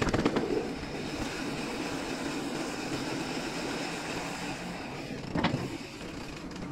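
Mountain bike rolling along a concrete path: a steady noise of tyres and moving bike, with one short knock about five and a half seconds in.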